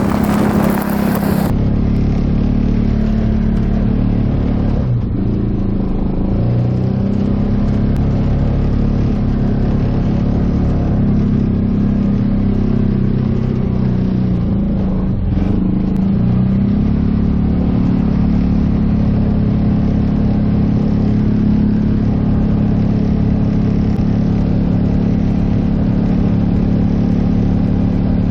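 Polaris Ranger 570 UTV's single-cylinder engine running steadily while the machine is driven, with a brief hiss of wind noise in the first second or so.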